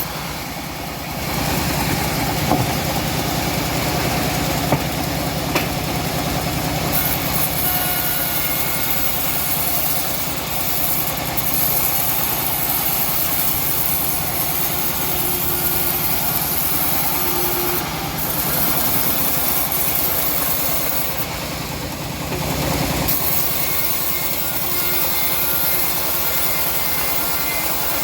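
Engine of a homemade bandsaw sawmill running steadily, with a few short knocks in the first few seconds.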